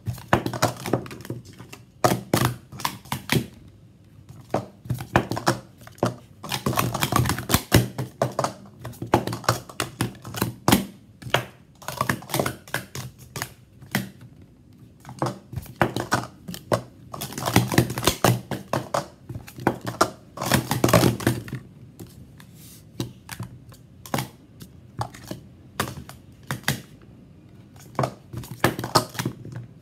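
Green plastic Speed Stacks sport-stacking cups being rapidly stacked up and down on a stacking mat: fast runs of plastic clacks and taps, in several bursts separated by short pauses.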